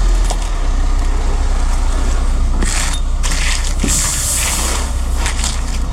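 Ready-mix concrete truck running with a steady low diesel rumble. Short bursts of scraping from the concrete work about three and four seconds in.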